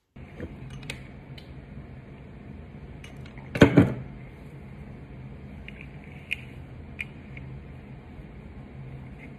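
Handling noises from a cloth face mask being picked up and handled, over a steady low hum: a few light clicks and a brief loud rustle about three and a half seconds in.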